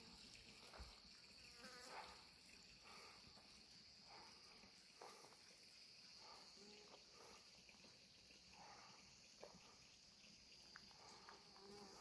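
Faint, steady, high-pitched drone of insects in the summer heat, with a few faint scattered clicks and rustles.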